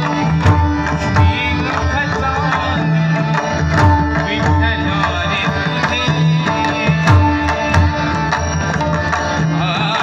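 Massed pakhawaj drums, about 125 of them, played together in a steady rhythmic pattern, accompanying a sung Marathi abhang (devotional song).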